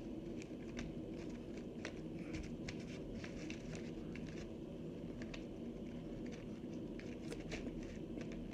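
Dried cornstarch-and-water chunks crunching, with many irregular crisp crackles, over a steady low hum.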